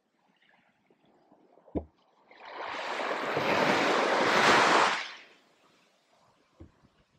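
A wave breaking and washing up the sand, swelling for about three seconds and then fading. A single short thump comes just before it.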